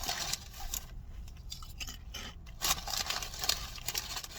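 Crunchy bacon-flavoured corn snacks crunching and crackling in three uneven bursts.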